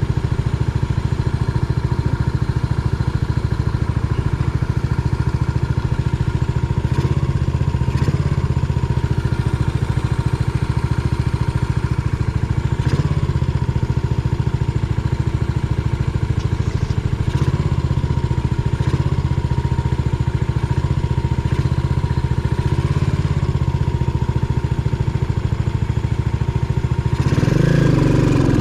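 Yamaha SR400's single-cylinder four-stroke engine idling steadily, with a few light clicks over it; near the end the engine revs up.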